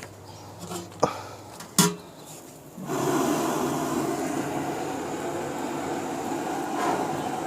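Two sharp knocks, then, about three seconds in, a gas burner flame suddenly starts a steady roar under the kadai of oil as it heats.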